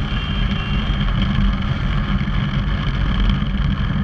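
Motorcycle running along the road, its engine under steady, heavy wind rumble on the microphone.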